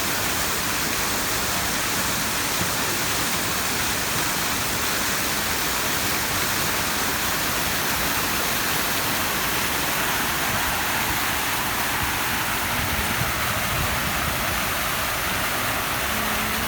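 Steady, even rushing of water, like a waterfall or heavy stream, with no breaks or changes in level.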